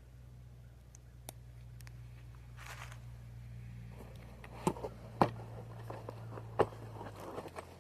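Camping tools and their packaging being handled: a short rustle, then several sharp clicks and knocks, over a steady low hum that stops near the end.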